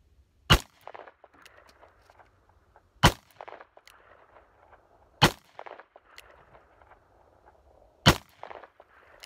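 Taurus Tracker .44 Magnum revolver firing four single shots, spaced about two to three seconds apart. Each shot is a sharp crack that trails off in a short echo.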